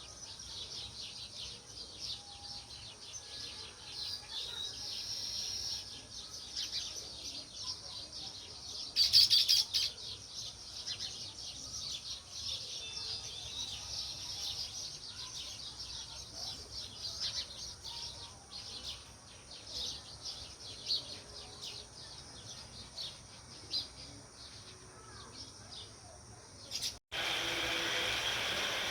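A flock of house sparrows chirping continuously, many short overlapping chirps, with a louder flurry about nine seconds in. About two seconds before the end the chirping cuts off abruptly and a steady, louder noise takes over.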